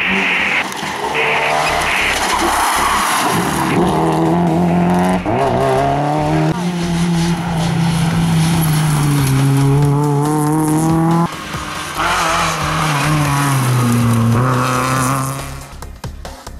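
Rally car engine revving hard under acceleration, its pitch climbing and then dropping sharply at each of several gear changes, with tyre noise underneath. The engine sound falls away near the end.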